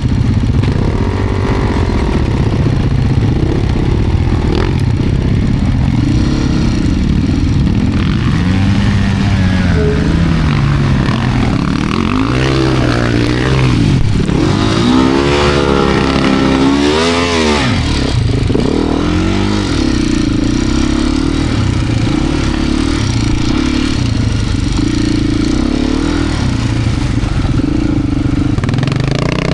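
Beta RR390 X-Pro's single-cylinder four-stroke dirt bike engine working through deep sand, its revs rising and falling with constant throttle changes, with the sharpest run of up-and-down revving about halfway through.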